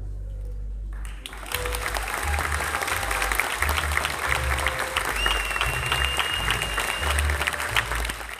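Backing music with a bass line plays, and about a second in applause breaks out over it, dense clapping that carries on over the music. The clapping and music fade out at the end.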